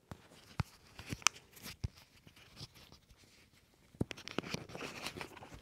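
Handling noise from a lavalier microphone as it is unclipped and tucked upside down inside a shirt collar: scattered clicks and scratchy fabric rustling picked up directly by the mic, busier toward the end.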